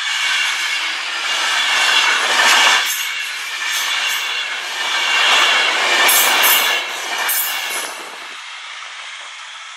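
Virgin Class 390 Pendolino electric train passing at speed close by, a loud rushing of wheels and air that swells and eases as the coaches go past. It falls away about eight seconds in as the last coach clears.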